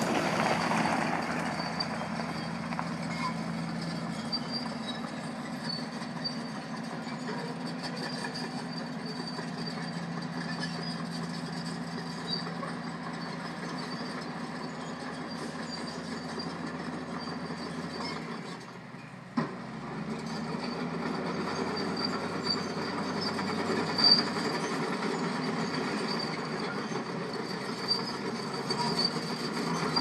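Heavy diesel engines of a bulldozer and a semi truck running under load as the dozer pushes the truck up a steep grade, a steady low drone. The drone briefly drops away with a click about two-thirds of the way through, then carries on.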